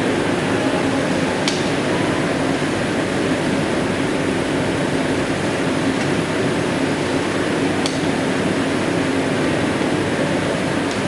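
Factory machinery running: a steady hiss with a low hum, broken by two short sharp clicks, about a second and a half in and again near eight seconds in.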